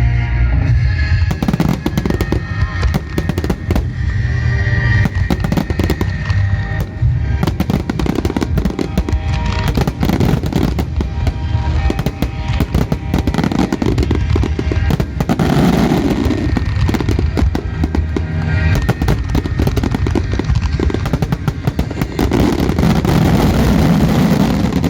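Fireworks shells bursting in a rapid, dense barrage, many reports close together with a rumbling low end, while music plays along.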